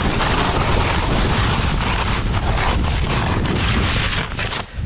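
Strong wind buffeting the microphone: a loud, rushing hiss over a deep rumble, dropping away briefly just before the end.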